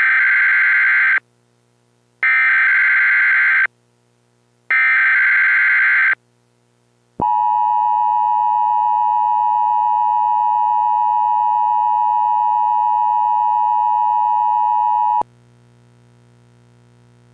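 Emergency Alert System SAME header: three loud bursts of warbling digital data tones, about a second and a half each, followed by the two-tone EAS attention signal held steady for about eight seconds. It cuts off sharply, leaving a faint low hum.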